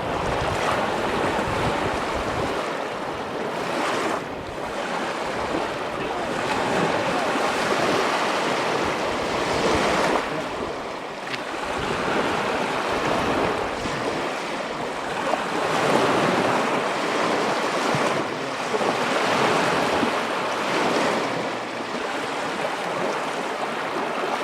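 Lake Michigan waves breaking and washing up on a sandy shore, the surf swelling and easing about every three seconds. Wind rumbles on the microphone for the first couple of seconds.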